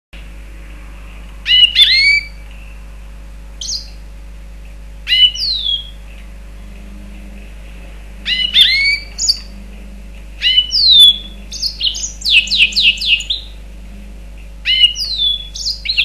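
A Mozambique serin × canary hybrid (mule) singing: short phrases of sliding whistled notes and chirps every couple of seconds, with a run of quick repeated notes about three-quarters of the way through. A steady low hum sits underneath.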